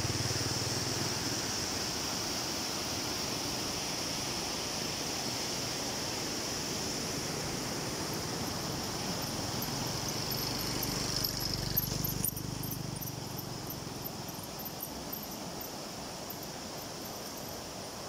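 Flash-flood water rushing through a rocky stream's rapids: a steady noise of moving water that gets a little quieter about two-thirds of the way in.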